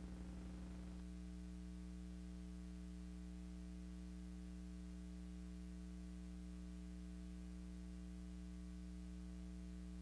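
Steady electrical hum with faint hiss and no other sound: the empty soundtrack of a silent film transfer. The hiss drops slightly about a second in.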